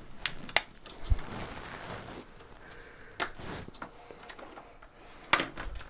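New plastic toilet seat being handled and fitted onto a porcelain toilet bowl: several sharp plastic clicks and knocks, a dull thump about a second in, and some rubbing of plastic on porcelain.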